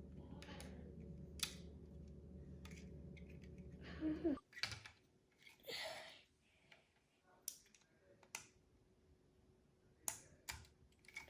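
Plastic LEGO pieces clicking and clattering lightly as they are handled and pressed together, a scattered string of small ticks. A low steady hum underneath cuts off suddenly about four seconds in.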